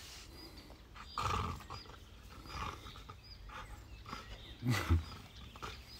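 Dog growling in short, low bursts as it grips and tugs at a leafy tree branch: one burst about a second in and two louder ones close together near the end. The dog is worked up, trying to gnaw the whole branch off.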